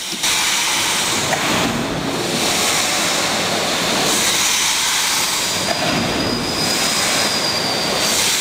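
Steam winding engine of a coal-mine hoist running: a steady hiss of steam and machinery noise, with a faint high whine joining about halfway through.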